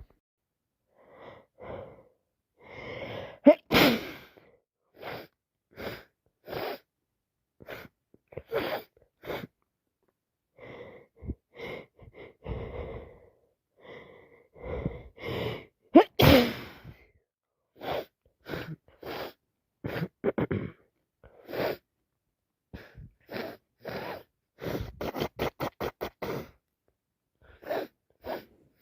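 A woman with a cold sneezing twice, about four seconds in and again about sixteen seconds in, each sneeze led by gasping in-breaths. Many short sniffs come between the sneezes, with a quick run of sniffs near the end.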